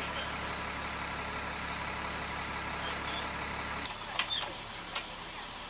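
A vehicle engine idling steadily. Its low rumble drops out suddenly about four seconds in, followed by a few short clicks.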